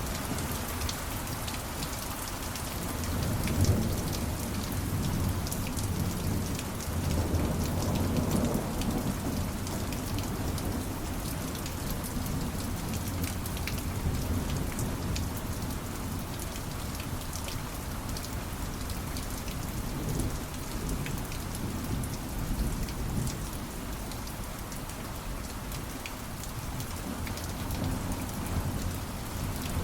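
Steady rainfall with many small drops pattering, under low rolls of thunder that swell about three seconds in and again around eight seconds.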